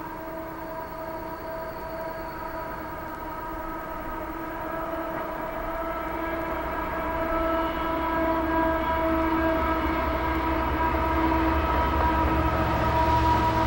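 Southern Pacific diesel freight locomotives working upgrade as they approach, their deep engine rumble growing steadily louder from about halfway through. A steady high-pitched tone sounds over it throughout.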